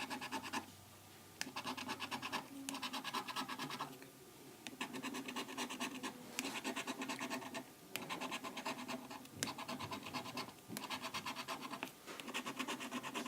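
A coin scratching the coating off a scratch-off lottery ticket: rapid back-and-forth strokes in runs of one to two seconds, with short pauses between them.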